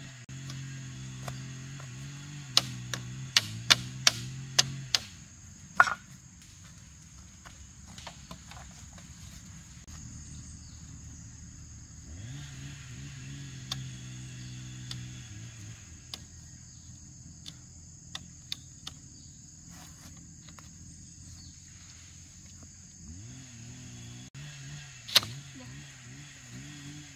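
Bamboo slats clacking and knocking against each other as they are worked into a woven bamboo lattice panel: a quick run of sharp knocks a few seconds in and one more near the end. A steady high insect drone runs underneath, and a low engine hum comes and goes three times.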